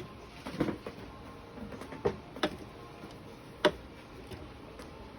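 A few light, sharp taps and clicks spaced irregularly over several seconds, from a paintbrush against a watercolour palette while paint is mixed.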